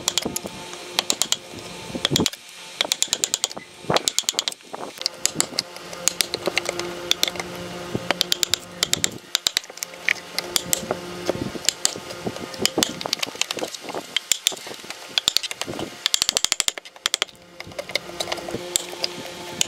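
Mallet tapping a wood chisel into the end grain of a log, cutting a slot: quick runs of sharp strikes with short pauses between them.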